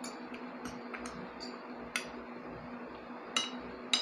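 Metal spoon and fork clinking and scraping against a plate while eating, a series of light, irregular clinks with the two loudest near the end.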